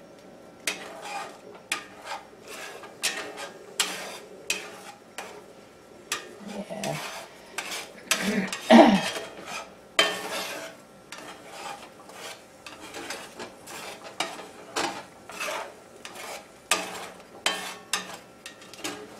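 Slotted metal spatula scraping and knocking against a cast iron skillet as eggs are scrambled, in irregular strokes, with one louder stretch about halfway through.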